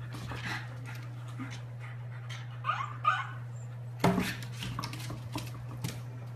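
A dog vocalizing, with two short calls that glide in pitch about three seconds in.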